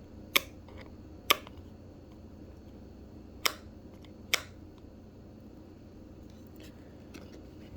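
Four sharp clicks in two pairs, each pair about a second apart, from small hand work on a bass knob and its tint film, with a few fainter ticks near the end.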